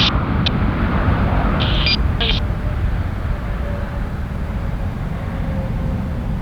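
Jet airliner engines rumbling steadily, easing off slowly, with a few brief high clicks in the first couple of seconds.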